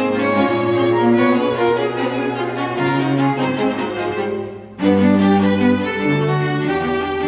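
String quartet playing held, bowed chords. The sound thins out and pauses briefly about two-thirds of the way in, then all the instruments come back in together on a loud chord with low cello notes underneath.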